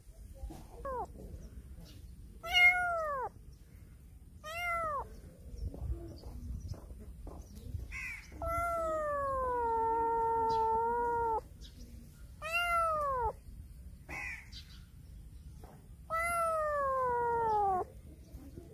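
Young black kitten meowing over and over, about seven cries that mostly fall in pitch, the longest drawn out for about three seconds midway.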